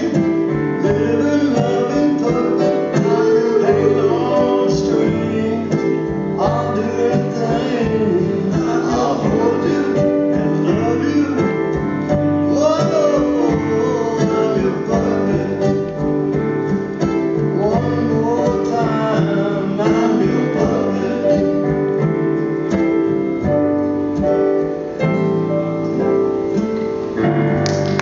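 Live band of keyboards and acoustic guitars playing a slow soul song, with voices singing over it. Near the end the song finishes and audience applause breaks out.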